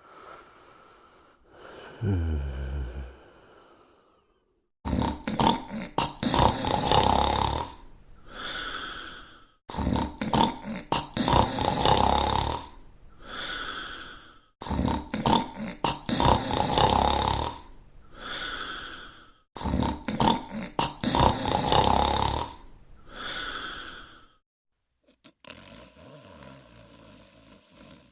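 Cartoon snoring sound effect: four loud, rattling snores about five seconds apart, each followed by a short whistling exhale. About two seconds in, before the snores begin, there is a brief sound that falls in pitch.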